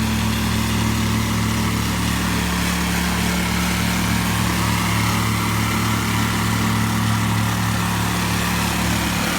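Compactor with a small engine running steadily as it compacts a crushed-rock base.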